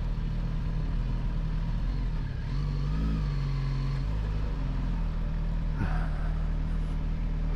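Suzuki GSX-S 1000GT inline-four engine running at low revs, with a brief rise in revs about two and a half seconds in that settles back after a second or so.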